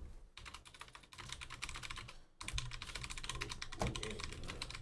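Rapid typing on a computer keyboard, with a brief pause about two seconds in and a dull knock near the end.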